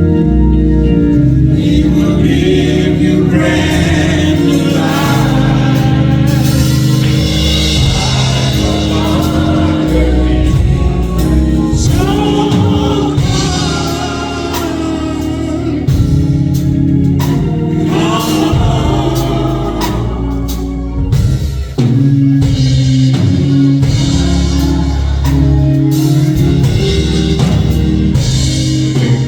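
Gospel music: a choir singing over instrumental accompaniment.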